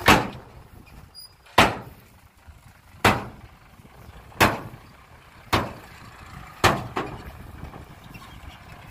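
Six loud bangs, each ringing briefly, roughly a second and a half apart and coming a little closer together toward the end, over a low steady rumble.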